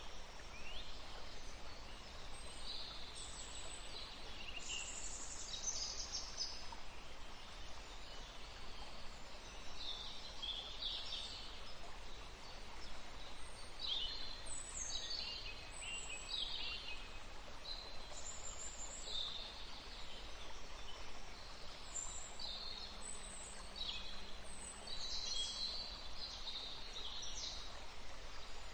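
Several songbirds singing and calling: many short, high chirps and quick falling notes following one another, over a steady background hiss.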